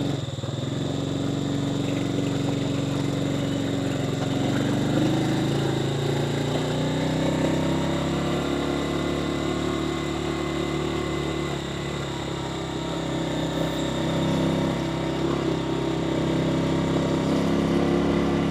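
Motorcycle engine running under way as the bike is ridden along a rough road, its pitch rising about four seconds in as it picks up speed, then holding steady.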